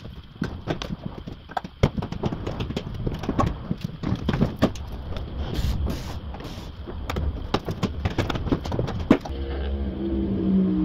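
Hand tools and metal suspension parts clicking and knocking in quick, irregular succession as a car's front suspension is worked on. Near the end a steady pitched hum takes over.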